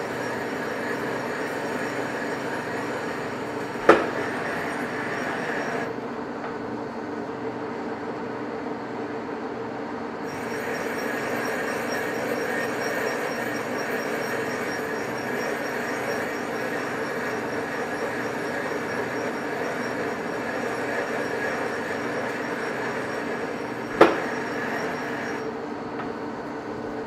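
Manual metal lathe running at slow speed while single-point cutting internal threads in a barrel nut: a steady machine drone with cutting noise. Two sharp clicks come about four seconds in and again near the end, and the higher hiss drops away for a few seconds around the sixth to tenth second.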